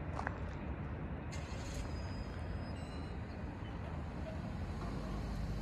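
Steady low rumble of a car's engine running nearby, with one short high chirp just after the start.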